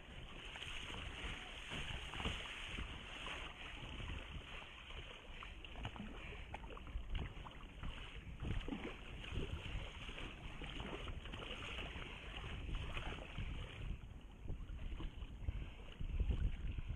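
Water rushing and splashing along a sea kayak's hull as it paddles and surfs wind-driven chop, with wind buffeting the microphone, strongest near the end.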